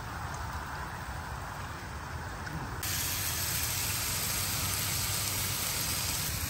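Sliced ribeye steak sizzling on a ridged grill pan: a steady hiss that gets louder and brighter about three seconds in.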